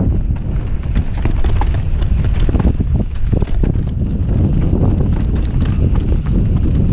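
Bicycle rolling fast over a rough dirt trail: a steady rumble of tyres on loose earth and stones, broken by frequent irregular knocks and rattles as the bike hits bumps, with wind buffeting the microphone.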